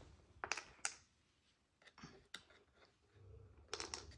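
Light clicks and clacks of hard plastic as a hand handles the pieces of a plastic cat food maze. They come in a pair early, another pair about two seconds in, and a quick cluster near the end.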